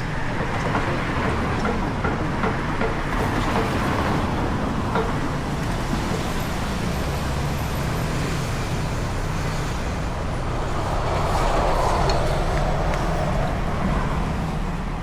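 Steady road traffic noise, swelling a little louder about eleven seconds in.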